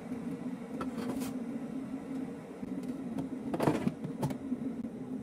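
Kitchenware being handled on a stone countertop: a few light clinks and knocks, then a louder clatter about three and a half seconds in as a ceramic plate is set down, over a steady low machine hum.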